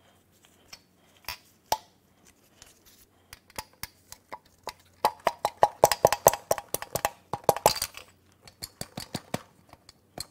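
Rapid metal-on-metal tapping and clinking from knocking a connecting rod and piston up out of a cylinder bore of a Toyota 2AR-FE aluminum engine block. A couple of single knocks come first, then quick ringing strikes, densest in the middle. The piston is stuck fast, which is taken for rust hanging it up.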